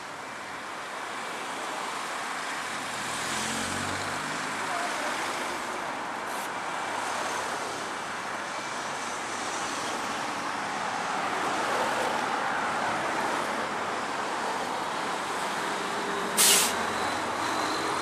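Steady road traffic noise on a city street, with a vehicle engine rising in pitch about three seconds in. A short, sharp hiss about sixteen and a half seconds in is the loudest sound.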